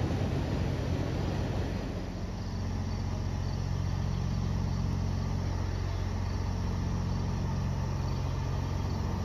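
An engine running steadily, a low even hum made of a few held tones, with another tone joining about two seconds in. Crickets chirp faintly above it.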